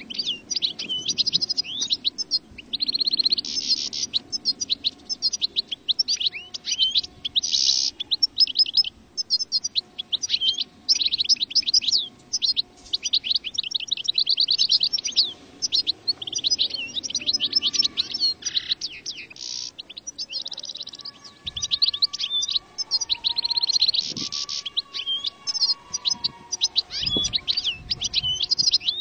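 European goldfinch song: fast, continuous high twittering of chirps, rapid trills and short buzzy notes.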